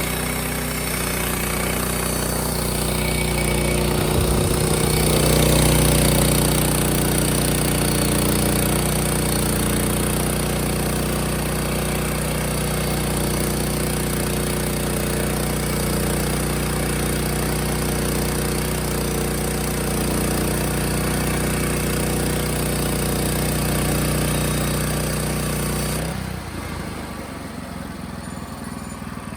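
Engine of a portable band sawmill running steadily under load, with a high hiss from the cutting blade, swelling briefly a few seconds in. Near the end the sound drops to a quieter, lower engine run as the hiss stops, the cut ending.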